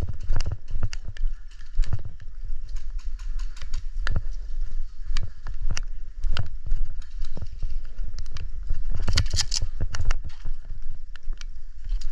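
Footsteps and kit knocks of an airsoft player on the move: irregular footfalls and clicks, about two to four a second, with a brief hiss about nine seconds in.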